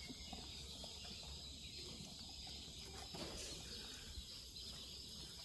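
Quiet background with a steady high hiss, a faint low hum and a few soft clicks; no distinct call or sound stands out.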